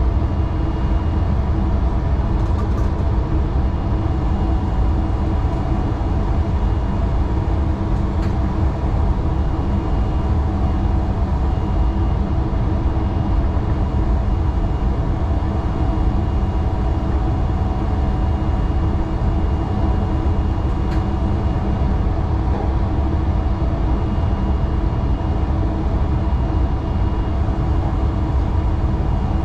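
Class 442 electric multiple unit running along the line, heard from inside the driver's cab: a steady rumble of running noise with several steady hum tones from the electrical equipment and a few faint clicks.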